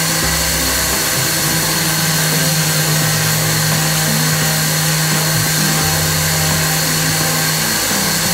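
CNC gantry router milling solid wood: a steady, loud spindle noise with a constant hum, and low tones underneath that shift in pitch every second or so.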